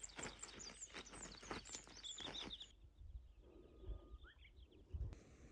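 Small birds chirping in quick, high twittering notes, busiest in the first half and sparser later, with a few soft low thumps.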